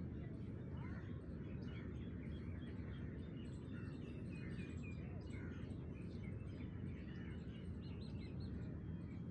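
Small birds chirping and twittering, most busily in the middle, over a steady low rumble of outdoor background noise.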